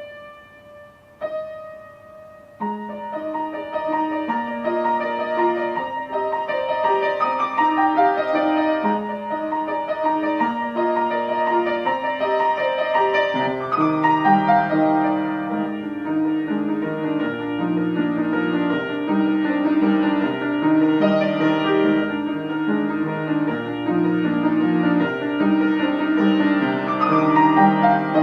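Piano music: a few single notes, then a steady melody with a lower accompaniment joining about halfway through.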